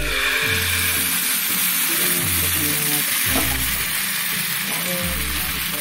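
Vegetable dosa batter sizzling in hot oil in a nonstick frying pan: a steady, loud hiss that starts suddenly as the batter is ladled in.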